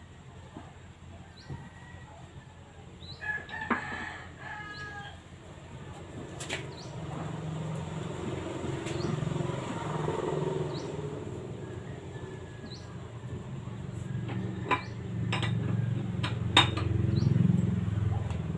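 A rooster crows once about three seconds in, over small birds chirping. In the second half come several sharp metal clinks of hand tools during work on a vehicle's rear wheel, over a low rumble that grows louder toward the end.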